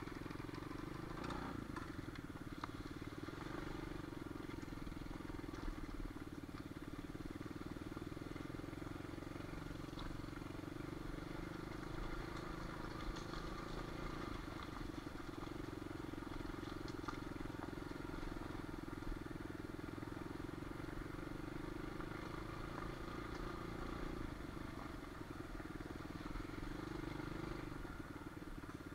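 Small dirt bike engine running at a nearly steady pitch, with a few faint clicks and rattles.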